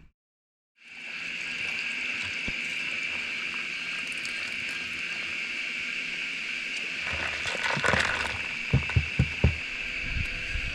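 Steady high-pitched drone of an insect chorus over a haze of running river water. It starts after a brief silence, and a few low knocks come near the end.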